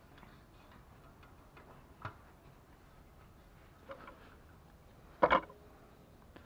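A few light clicks and knocks from handling a plastic oil-filling syringe and its hose at a transfer case filler hole. The loudest is a sharp double clack a little past five seconds in, with a brief ring after it.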